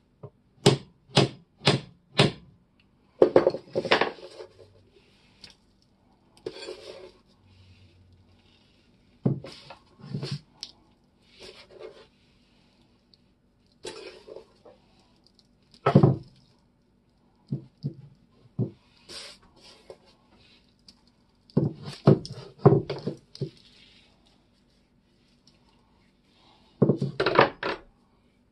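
Metal knocks and clinks: a claw hammer tapping the iron shaft of an antique hammer axe in runs of a few quick strikes, first four about half a second apart, with iron tools being handled and set down on the workbench.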